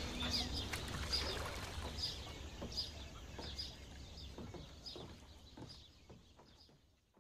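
Birds calling with short chirps, about two a second, over a low rumble of ambience, fading out to silence near the end.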